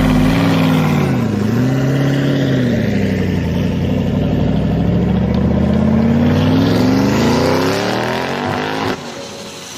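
An engine revving. Its pitch dips and recovers in the first second or two, then climbs steadily over several seconds before cutting off suddenly near the end.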